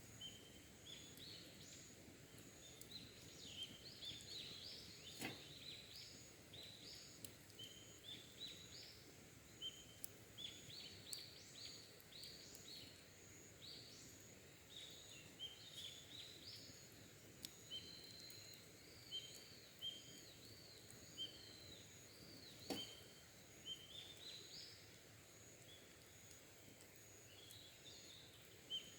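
Wild birds singing faintly, many short repeated chirps and trills overlapping. Two sharp cracks stand out, one about five seconds in and one later, typical of a campfire's embers popping.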